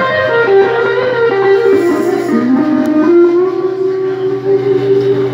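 Live blues band with an electric guitar playing a lead line of bent notes, ending on a long held note in the last couple of seconds.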